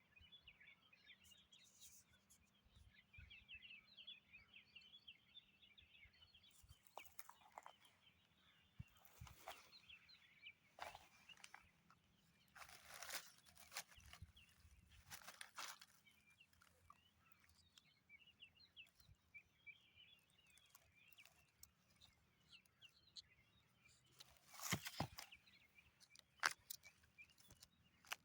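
Faint forest ambience: many small birds chirping. A few irregular rustling crunches, the loudest near the end, are heard over it.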